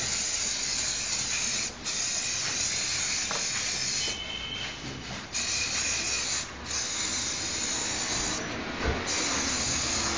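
Diesel steam cleaner's nozzle hissing as a jet of hot steam is sprayed, steady apart from a few short drops in strength.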